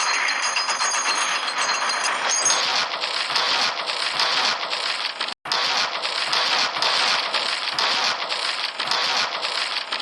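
War sound effect: a loud, dense, continuous rattle of rapid clicks, like massed gunfire, with a few thin high tones over it for the first two seconds or so. It cuts out for an instant about five seconds in.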